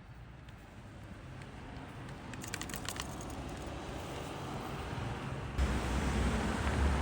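Faint outdoor background noise that grows gradually louder, with a quick run of clicks about two and a half seconds in and a low rumble that comes in suddenly after five and a half seconds.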